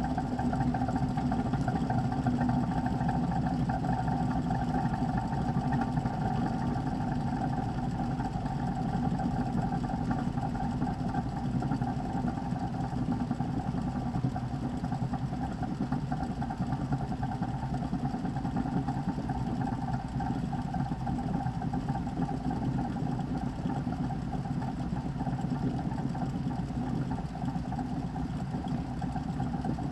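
VIVOSUN 203 CFM 4-inch inline duct fan running at a constant speed, a steady hum and whir of motor and moving air.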